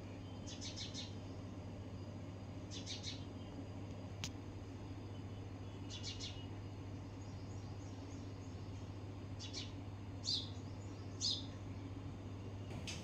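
Small bird chirping in short bursts of a few quick, high notes, repeated every one to three seconds, over a steady low hum.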